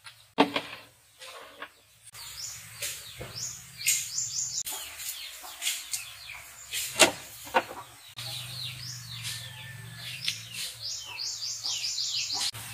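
A bird calling with runs of quick, high notes that slide downward, in two bursts, the second near the end. A few sharp taps and knocks come in between.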